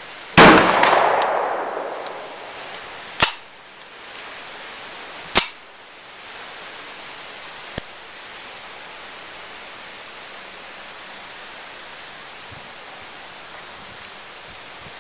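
Three sharp bangs, under half a second in, about three seconds in and about five seconds in. The first is the loudest and echoes away over more than a second; the later two are shorter. A faint tick comes near eight seconds.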